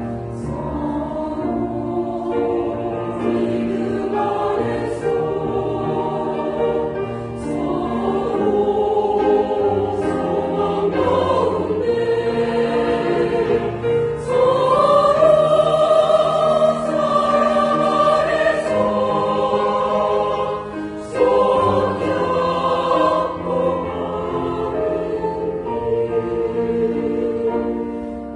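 A church choir singing a hymn, the voices swelling to the loudest passage with long held notes about halfway through.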